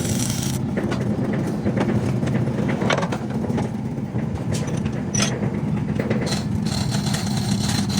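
Engine idling steadily, with a hiss at the start and again near the end and a few short knocks.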